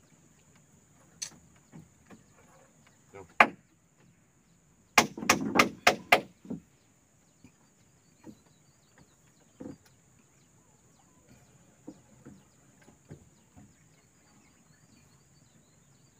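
Wood being struck with sharp knocks: a few single blows, then a quick run of five hard strikes about five seconds in, then scattered lighter taps. A steady high insect drone runs underneath.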